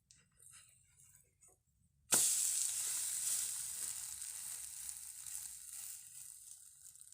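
Food going into a hot oiled pan: a loud sizzle starts abruptly about two seconds in and slowly dies down as it fries.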